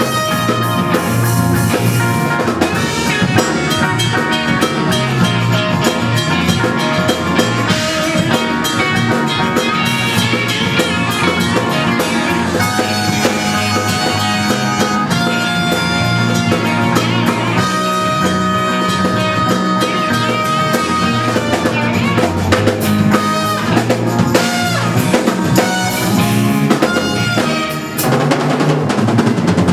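A rock band playing live in an instrumental section: drum kit keeping a steady beat under held lead notes, with no singing.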